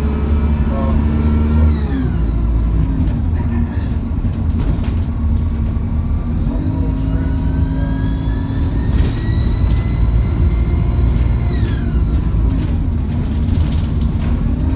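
Alexander Dennis Enviro200 bus's diesel engine running, with a high-pitched turbocharger whine over the low engine drone. The whine falls away about two seconds in as the throttle eases, then rises steadily from about six and a half seconds, holds, and drops off again near twelve seconds.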